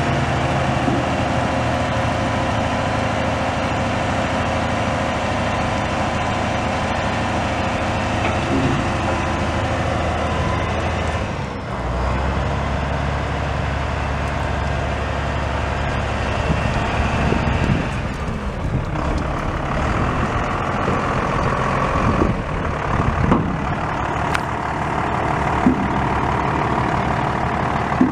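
International DT466 inline-six turbo diesel of a dump truck running steadily while its hydraulic hoist raises the dump bed. About twelve seconds in the low engine note shifts, and a few short knocks come in the later part.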